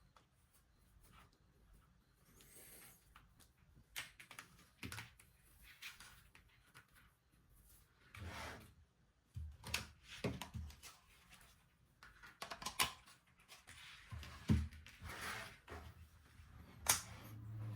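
Handling noise: scattered light clicks, taps and knocks, sparse at first and busier from about eight seconds in.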